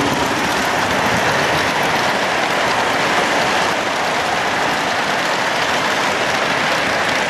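Lionel O-gauge model trains running on three-rail metal track: a steady noise of wheels and motors.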